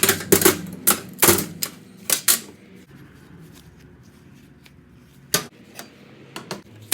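Hard parts clicking and knocking as they are handled: a quick run of sharp clicks for about the first two and a half seconds, then a few scattered knocks near the end.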